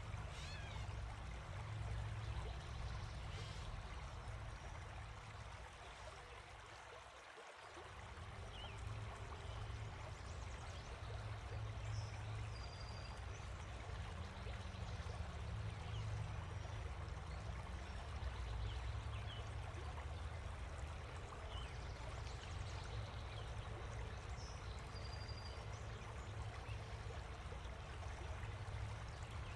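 Steady outdoor ambience: an even rushing noise over a low rumble, which fades briefly about seven seconds in, with a few faint, short, high chirps.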